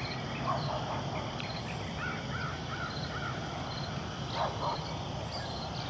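Short animal calls over a steady background hiss: a harsher call about half a second in, a quick run of four short notes about two seconds in, and a pair of calls about four and a half seconds in, with faint high chirps throughout.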